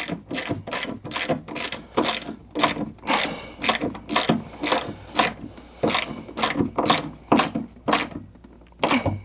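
Hand ratchet wrench clicking in quick repeated strokes, about three a second, as the bolts of a Jeep XJ door check stop are snugged down inside the door.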